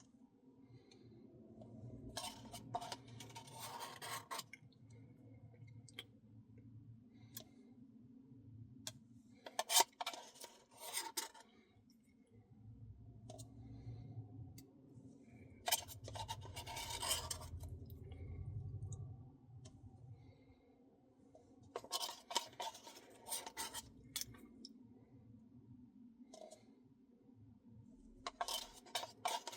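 Spoon scraping and scooping through a Reese's Pieces cookie dough Blizzard in its cup, in five separate scrapes a few seconds apart, over a faint steady hum.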